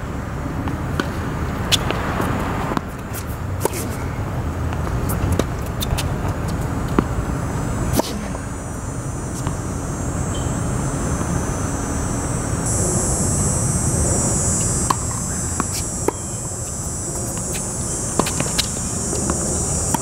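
Tennis ball struck by rackets and bouncing on the hard court during a rally: sharp pops every second or two over a steady low rumble. A high, steady buzz joins about two-thirds of the way through.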